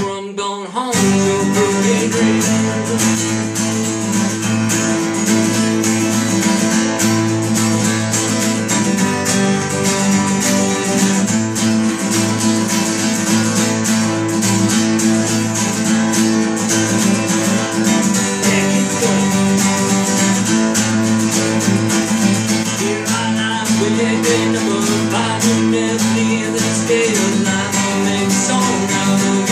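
Two acoustic guitars strummed together in a steady instrumental passage, with a short break about a second in before the playing carries on.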